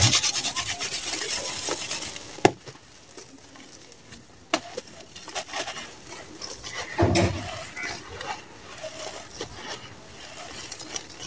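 Dry sand-and-cement balls crushed by hand, crunching and crumbling, with gritty grains pouring and pattering down. The crunching is densest at the start, with a sharp crack about two and a half seconds in and a fuller crunch about seven seconds in.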